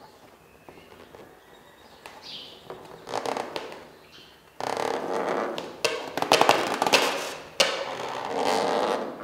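A felt-tip marker scrubbed over the latex of a white balloon to fill in a black eye, with the balloons squeaking and rubbing against each other as they are held. Faint scratching at first, then from about halfway loud, scratchy squeaking in long stretches.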